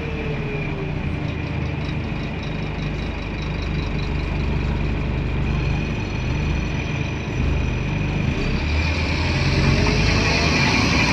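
Scania N230UD Omnidekka double-decker bus's five-cylinder diesel engine running steadily, heard from inside on the upper deck, growing louder over the last few seconds.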